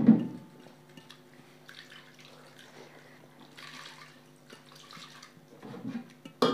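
Fingers mixing and squeezing cooked rice against a metal plate: soft, wet squishing and scraping. There is a sharp louder knock at the start and another near the end.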